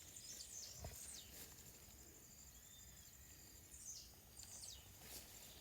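Faint outdoor ambience: a steady high insect drone with birds chirping a few times in short, high, falling calls.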